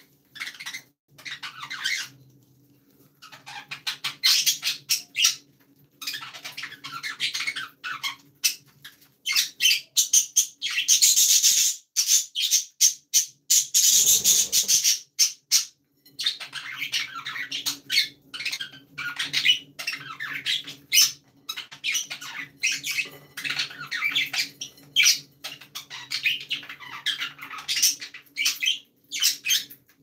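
Budgerigars chattering: a dense run of quick, high chirps and squawks with a few short pauses, loudest around the middle.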